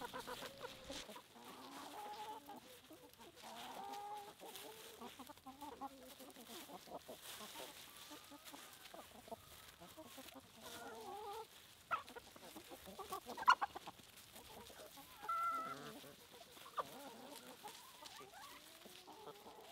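A flock of chickens clucking, many short overlapping calls. A few sharp taps about two-thirds of the way through are the loudest sounds.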